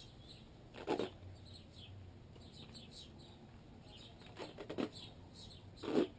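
A few short crackling rustles, about one second in, twice in quick succession near four and a half seconds, and again near the end: cohesive vet wrap being pulled off its roll and wrapped around a dog's paw. Small birds chirp over and over in the background.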